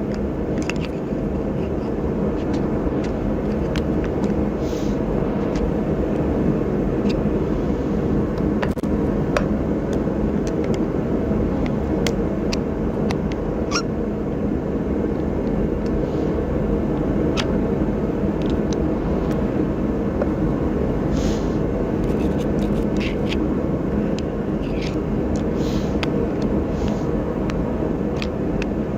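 Steady low background noise with a faint hum, broken by scattered light clicks and taps as a new brake pad and its tight spring clips are worked onto a truck's disc brake caliper.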